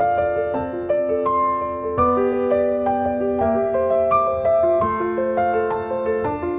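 Piano music: a gentle melody of sustained, overlapping notes.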